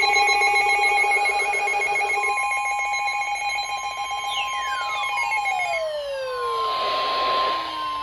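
NOAA Weather Radio warning alarm tone: one steady 1050 Hz tone that starts about two seconds in and heralds a coming warning broadcast. Under it, a chord of steady electronic tones fades out, and several falling pitch sweeps come in near the end.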